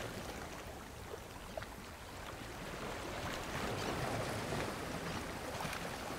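Sea waves washing against the shore, a steady rush that eases and then swells again, with a couple of faint clicks between one and two seconds in.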